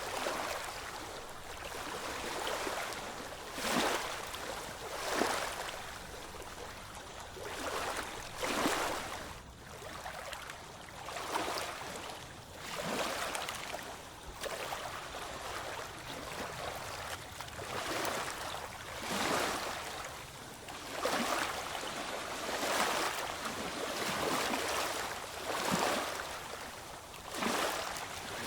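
Ocean waves washing in, a continuous wash of water that swells in a surge every couple of seconds.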